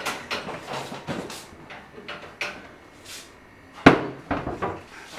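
Irregular sharp knocks and clicks from handling a gas stove and its control knobs while lighting a burner by hand, with one loud knock nearly four seconds in.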